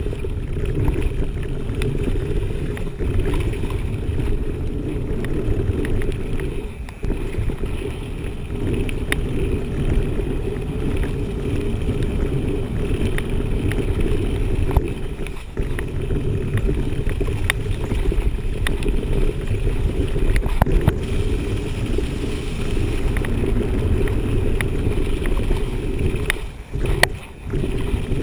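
Mountain bike riding fast down a dirt forest trail, heard from a camera on the handlebars: a steady, muffled low rumble of tyres on the trail and wind, with scattered clicks and rattles from the bike. It drops away briefly twice, about seven seconds in and near the end.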